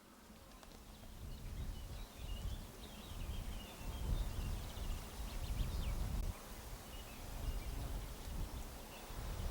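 Wind buffeting the microphone in gusts, fading in over the first couple of seconds. A small bird chirps quickly and faintly from about two to six seconds in.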